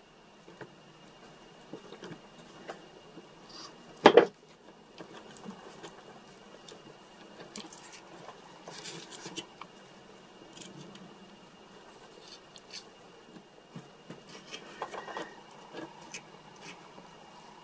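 Hands working modelling clay into a small square mold box: scattered small clicks, taps and scrapes of fingers and a thin tool on the clay and box, with one sharp knock about four seconds in.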